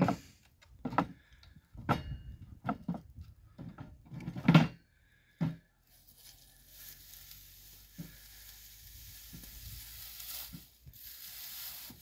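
Dry hay crackling and rustling, with several sharp wooden knocks, as hay is packed into a handmade wooden box baler and its shutter is set against the ram. The loudest knock comes about four and a half seconds in. After that there is only a steady faint hiss.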